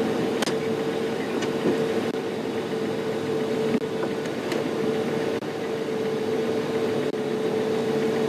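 Safari game-drive vehicle's engine idling, a steady hum with an even running noise and a few faint clicks.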